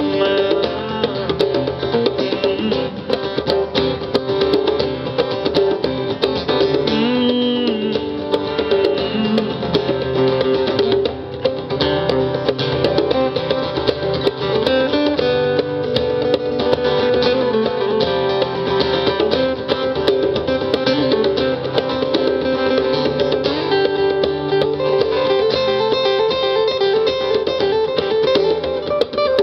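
Two acoustic guitars playing an instrumental passage together, picked and strummed, with some notes bent or slid, over a hand drum.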